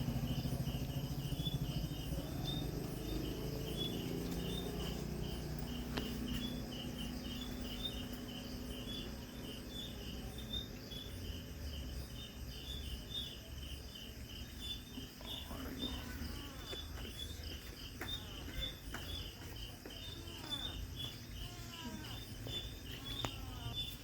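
Insects chirping in a steady, evenly pulsed rhythm, over a low rumble and hum that is strongest in the first few seconds. A few faint gliding calls come in the second half.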